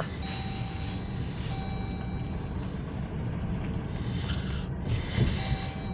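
A car driving along a road, heard from inside the cabin: a steady low rumble of engine and tyres.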